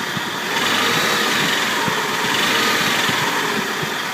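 Toyota 3.4 L V6 (5VZ-FE) engine of a 2000 4Runner running at idle, a little louder from about half a second in, with occasional faint irregular ticks. The ticking is one the owner traces to where the transmission meets the engine; it fades when the engine is revved above about 1700 RPM.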